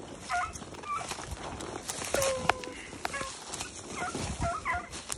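A pack of beagles baying on a rabbit track: scattered short, downward-bending bawls and chops from several hounds, among sharp clicks and rustling.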